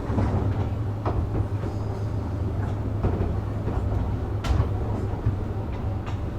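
JR West 201 series electric train heard from inside the car as it runs along the track, with a steady low rumble of wheels on rail and a few sharp clacks over rail joints.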